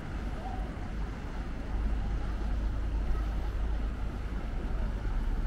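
Outdoor city ambience: a steady low rumble, with a little higher noise over it, that grows louder about two seconds in.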